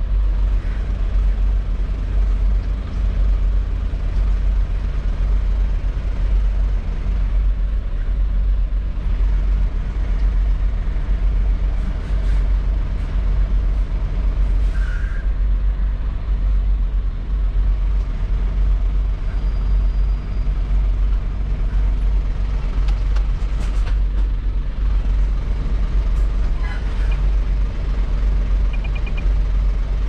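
Semi-truck's diesel engine running at low revs, a steady low rumble heard from inside the cab during slow manoeuvring, with a few faint clicks.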